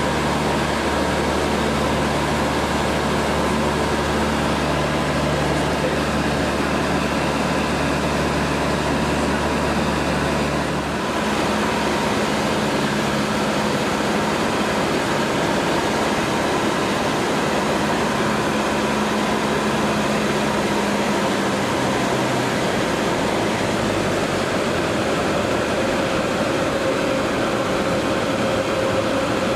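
Cabin noise inside a Cessna 150 in flight: the Continental O-200 four-cylinder engine and propeller running steadily under a hiss of wind. The engine note changes about a third of the way in, and again later.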